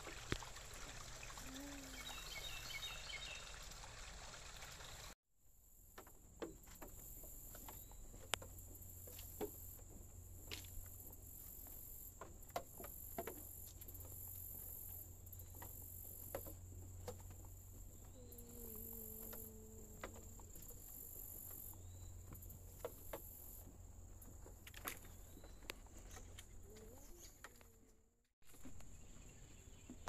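Faint outdoor ambience dominated by insects: a steady high-pitched drone with a pulsing chorus above it, and scattered light clicks and ticks. The sound drops out briefly about five seconds in and again near the end.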